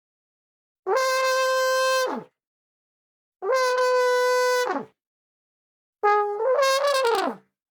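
Elephant trumpeting sound effect: three loud, horn-like blasts of about a second and a half each, with silence between them. Each blast holds a steady pitch and drops off at the end. The third starts lower, jumps up in pitch partway through and wavers before falling away.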